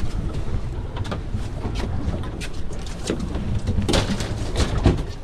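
Wind buffeting the microphone with a steady low rumble on an open boat deck, broken by several knocks and clatters from handling gear on the boat, the loudest two near the end.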